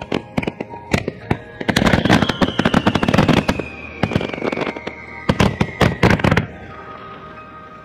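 Starmine fireworks barrage: rapid clusters of shell bangs and crackling, with a long tone falling slowly in pitch through the middle. The bangs stop abruptly about six seconds in, leaving a fading rumble.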